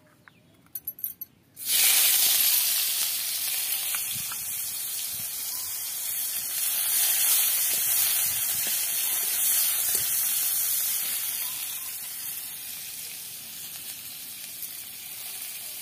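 Food tipped into hot oil in a kadai, sizzling loudly from about a second and a half in and slowly dying down as it fries.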